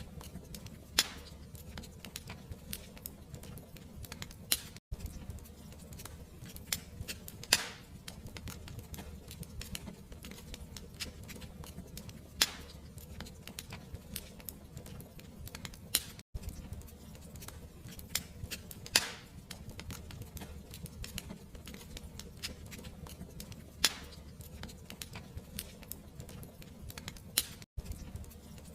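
Fireplace fire crackling, with sharp pops every few seconds over a steady low rumble. The sound cuts out for an instant three times, about every eleven seconds.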